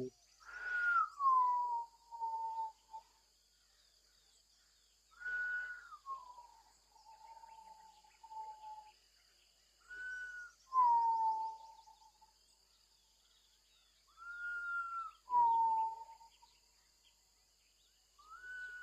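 A clear two-note whistle: a short higher note that slides down into a longer, lower held note, repeated four times about every five seconds.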